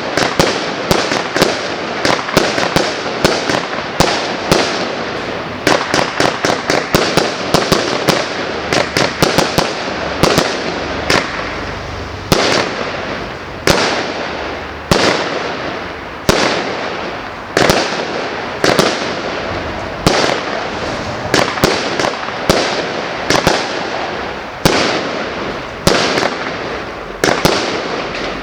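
A 150-shot 0.8-inch fireworks cake firing. Sharp shots come in quick volleys at times and about one a second at others, with a continuous hiss between them.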